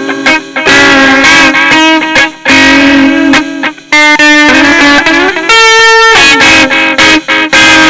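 Electric guitar rock music: a riff of short, changing notes, then a note held for about half a second about five and a half seconds in that slides down as it ends.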